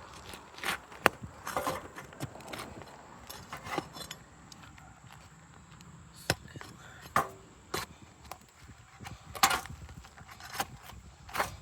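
Irregular sharp knocks, cracks and scrapes of roof shingles being worked loose around a roof vent, their glued seal strips pulling free. The loudest cracks come about a second in and again near the end.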